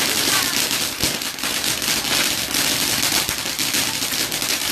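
Garden firework fizzing and crackling steadily, a dense spray of small pops over a hiss, with no big bangs.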